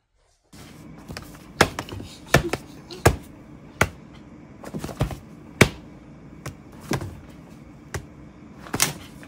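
A hand tapping on a pad of paper on a stack of books, about fifteen sharp, irregular taps over a steady low hum.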